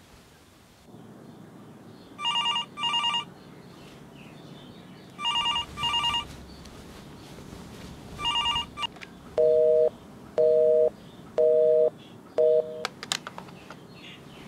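A phone ringing in a repeated double-ring pattern, three rings, followed by four louder, lower-pitched beeps about a second apart and then a few quick clicks.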